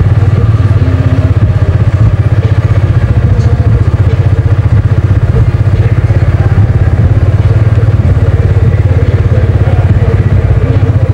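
Car engine idling loudly, a steady low rumble with a fast, even pulse.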